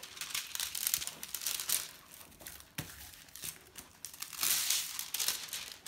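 Diamond painting canvas and its plastic cover film crinkling and rustling as it is handled and smoothed flat by hand, with one sharp tick a little under three seconds in and louder rustling near the end.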